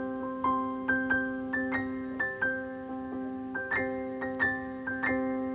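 Background music: a gentle keyboard tune of single piano-like notes, about two a second, each ringing out over a held chord.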